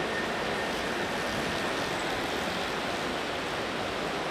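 Steady background hubbub of a large indoor velodrome hall: an even rush of reverberant ambient noise with spectators in the stands, and no distinct event standing out.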